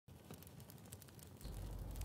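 Breeze in a forest: leaves rustling in a light, crackly patter of small ticks. About one and a half seconds in, a low wind rumble on the microphone joins in and holds.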